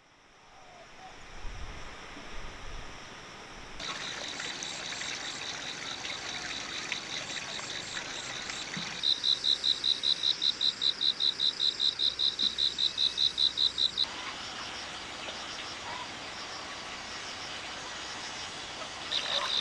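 Insects chirping in a high, thin trill, steady at first, then pulsing at about four to five beats a second for several seconds in the middle, where it is loudest, over a faint hiss of background noise.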